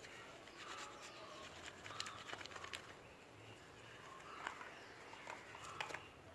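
Faint rubbing and light taps of a cloth wiping paste off a phone screen, with a few faint bird calls in the background.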